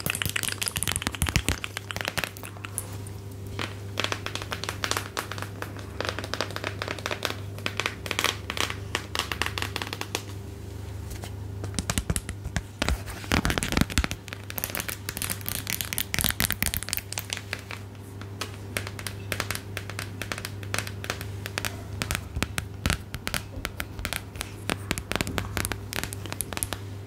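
Close-miked crinkling: a dense, irregular run of crackles made by handling something crinkly, as an ASMR trigger, over a steady low hum.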